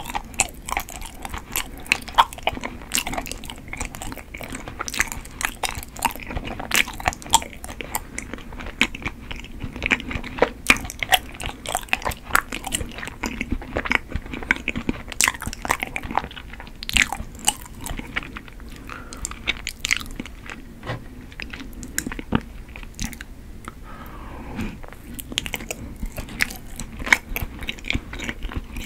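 Close-miked chewing of chewy Korean rice cake (tteok), a steady run of wet mouth clicks and smacks, many to the second.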